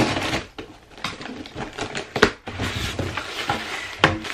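A package being handled and unpacked: rustling and scraping with a string of irregular knocks and clicks, the sharpest a little over two seconds in and again near the end.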